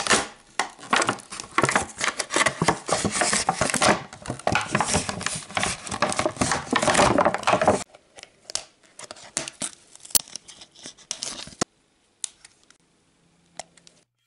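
Clear plastic window and cardboard of a doll box crinkling and tearing as it is ripped open by hand, with a dense crackle for about eight seconds. After that come a few sparse scissor snips as the doll is cut free from the backing card.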